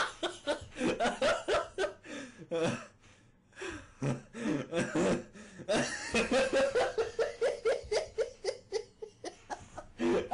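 A person laughing in long runs of quick bursts, with a short pause for breath about three seconds in.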